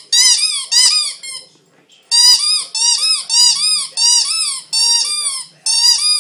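Rubber chicken squeaky toy squeaking over and over as a Shih Tzu bites down on it, about three squeaks a second. There is a short pause about a second and a half in, then the squeaking resumes.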